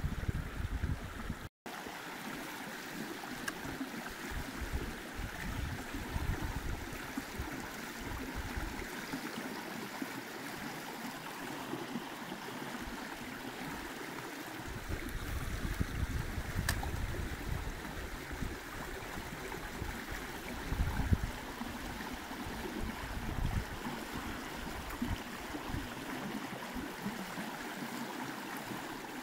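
Running water of a stream, a steady rushing hiss, with irregular low rumbles now and then.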